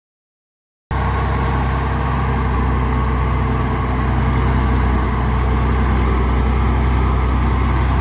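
Heavy diesel engine of earthmoving machinery running steadily, a deep even engine hum that starts abruptly about a second in.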